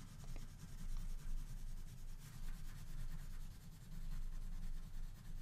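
Woodless colored pencil (color stick) scratching across paper in repeated light strokes as an area is colored in.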